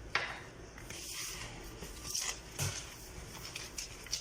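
Hands rubbing flour and olive oil together in a bowl: soft rustling and scraping, with a sharp click just after the start and a couple of light knocks about two seconds in.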